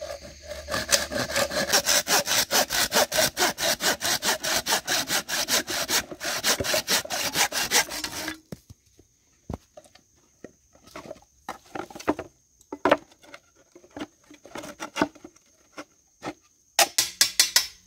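Hand sawing through the crooked end of a bamboo (taquara) pole, in quick, even back-and-forth strokes. The sawing stops about eight seconds in and gives way to scattered knocks and clicks of the wood being handled. A short run of strokes comes back near the end.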